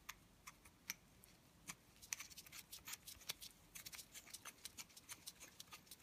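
Faint, irregular metallic clicks and ticks of a steel hex nut being turned by hand onto the threads of a long bolt, coming more often after the first couple of seconds.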